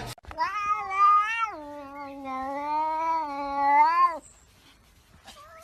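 A cat yowling: one long drawn-out call of about four seconds that drops a step in pitch about a second and a half in, then cuts off.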